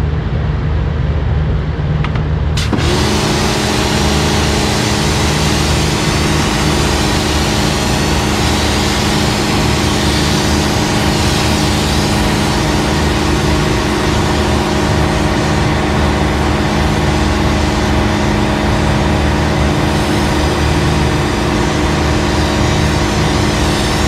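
Pressure washer blasting a water jet onto metal-mesh air-conditioner filters to wash out caked dust. Starting about three seconds in, there is a steady loud hiss of spray with the pump motor's steady whine, over a low hum that is there throughout.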